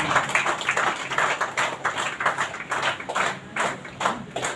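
Audience applause: many hands clapping, dense at first and thinning to a few scattered claps near the end.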